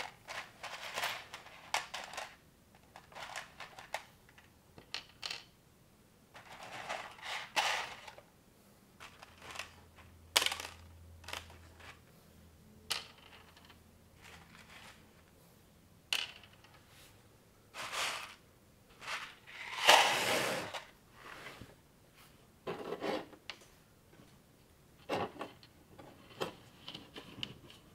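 Plastic building bricks and Technic-style parts being handled and fitted together: irregular bursts of small clicks, snaps and rattling of loose pieces with short quiet gaps, the loudest a clattering rummage through pieces about two-thirds of the way through.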